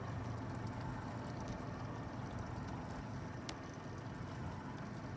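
Yamaha F150 outboard idling in neutral, a low steady hum, with water lapping at the boat. One brief click about three and a half seconds in.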